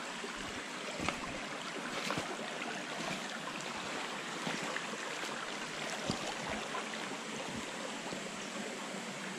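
Shallow creek water running and trickling over rocks, with a few short knocks and splashes as boots step on stones and in the water.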